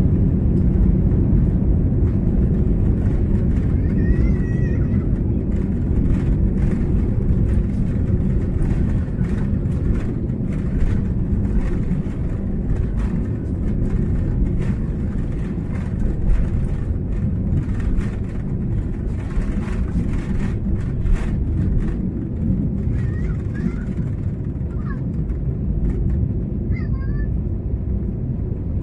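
Airliner engine noise heard from inside the passenger cabin: a loud, steady low rumble.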